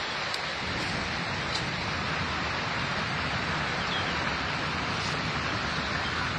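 Steady rushing wind noise on the microphone, with a few faint ticks about half a second and a second and a half in.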